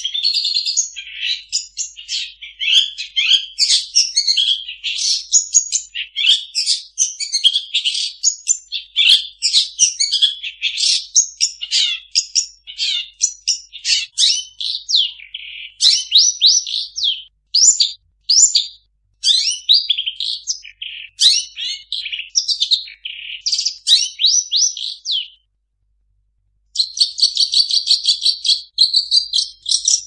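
Long-tailed shrike (cendet) singing a rapid, varied jumble of high chirps, whistles and quick glides, packed with mimicked songs of other birds. It stops for about a second near the end, then goes into a fast, even, rattling trill.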